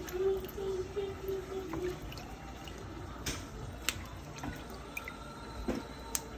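Tap water running into a plastic basin while hands swish and rub green beans in the water, with a few sharp clicks and small splashes.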